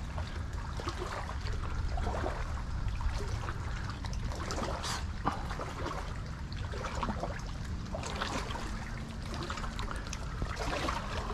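Water sloshing and trickling in irregular bouts as a person wades into shallow water, with small splashes and clicks, over a steady low rumble of wind on the microphone.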